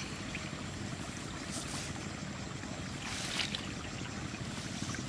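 Wind on the microphone making a steady low rumble, with two brief rustles as woven tube fish traps are handled in the grass.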